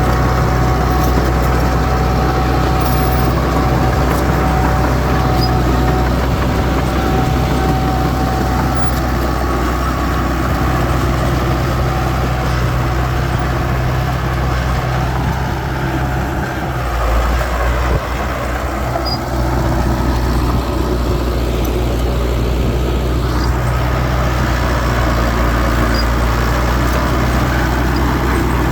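Diesel engine of heavy earthmoving machinery running steadily, with a brief swell in the low rumble about two-thirds of the way through.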